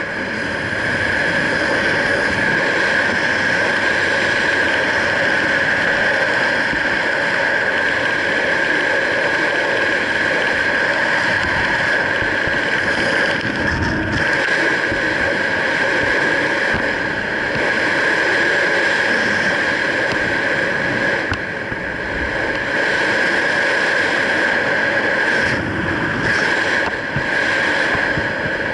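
Steady wind rushing over the camera microphone under an open parachute canopy, with a constant high-pitched hum running through it.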